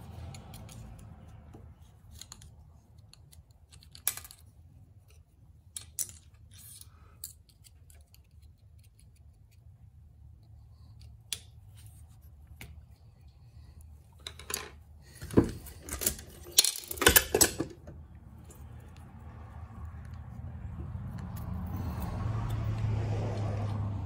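Sharp metallic clicks and clinks of a valve spring compressor, valve spring retainers and keepers being worked on a Case 188D diesel cylinder head, scattered at first, with a quick cluster of loud clinks about two-thirds of the way through. A low hum rises under it near the end.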